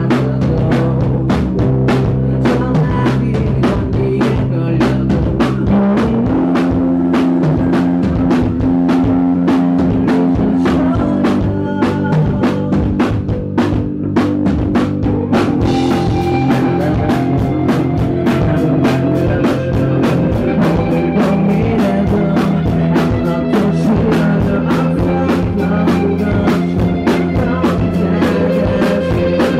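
Live indie rock band (electric guitar, keyboard, bass and drum kit) playing an instrumental passage, recorded close to the stage with the sound breaking up from overload. The drums thin out briefly about halfway through, then come back busier.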